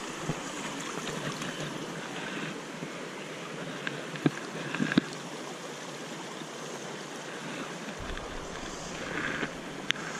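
Steady rushing of a shallow river current flowing over stones, with a few sharp clicks about four and five seconds in and again near the end.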